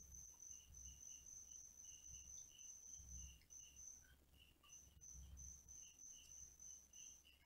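Near silence with a faint, high-pitched insect-like chirping, short pulses repeated a few times a second.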